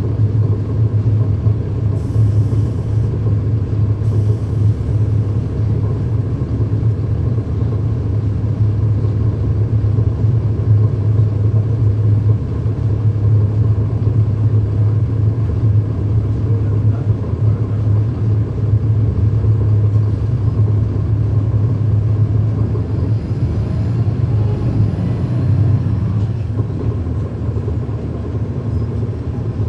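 A 2010 NABI 40-SFW transit bus heard from inside the cabin while under way. Its Cummins ISL9 diesel engine runs with a steady low rumble.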